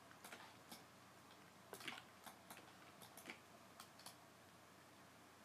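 Faint, irregular clicks of a computer mouse, about ten of them, over a quiet background hiss; the loudest comes about two seconds in.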